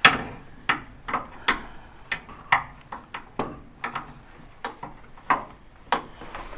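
Ratchet spanner undoing a nut, a sharp click about every half second as the handle is swung back and forth.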